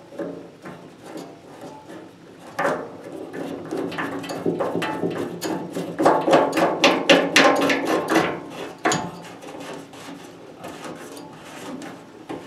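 Lock nut being threaded by hand onto a drain elbow fitting inside an aluminum live well: quick scraping and ticking of the threads, fingers and fitting against the aluminum box, busiest and loudest between about 6 and 9 seconds in.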